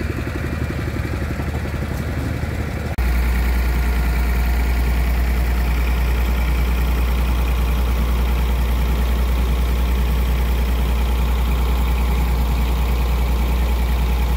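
An engine running steadily at idle with a deep hum. It gets abruptly louder about three seconds in, then holds steady.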